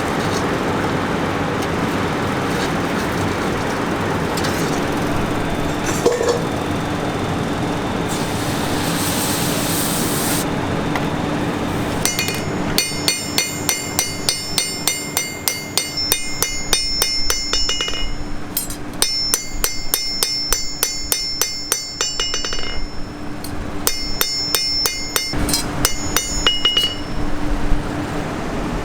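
A steady rushing noise with a low hum, then, after the first dozen seconds, three runs of rapid hammer blows on steel at an anvil, several a second, each blow ringing metallically.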